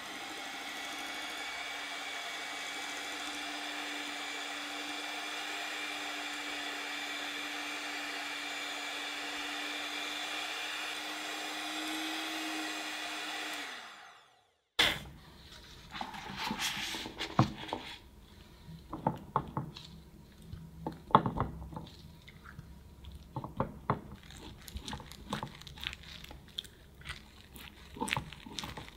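Electric hand mixer running steadily as its beaters whip mascarpone and cream-cheese cream with strawberry puree, winding down and stopping about fourteen seconds in. After a brief silence, scattered soft taps and clicks of a silicone pastry brush dabbing espresso onto a sponge cake layer.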